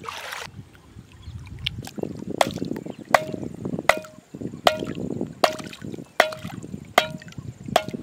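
A machete-like chopper hammering a wooden stake into a riverbed: eight sharp blows about three-quarters of a second apart, starting about two seconds in, each with a brief ringing note, over water sloshing around the legs.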